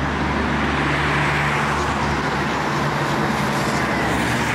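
Steady city road-traffic noise: a continuous even rush of passing vehicles with a low hum underneath.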